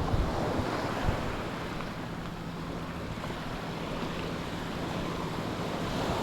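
Mediterranean sea waves washing onto the beach, a steady rush of surf. Wind buffets the microphone in low thumps during the first second or so, and a faint steady low hum runs underneath.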